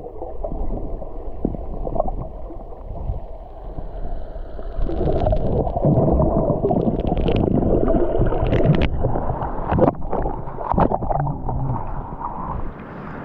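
Muffled sloshing and gurgling of seawater with the microphone at or under the surface, broken by irregular clicks and splashes.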